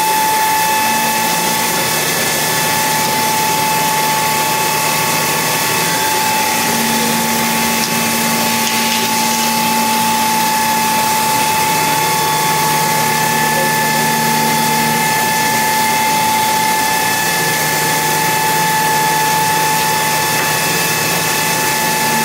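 Five-axis CNC milling machine running a cut. A steady high whine sits over a constant hiss of machining noise, with a lower hum that shifts in pitch a few times.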